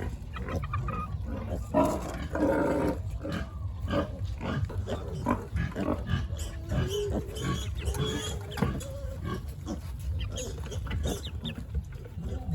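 Pigs grunting, with a louder, longer call about two seconds in, among many short knocks and clicks.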